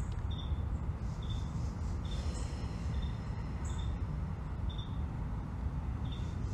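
Evening outdoor ambience: a short high chirp, most likely an insect's, repeating about once a second over a steady low rumble.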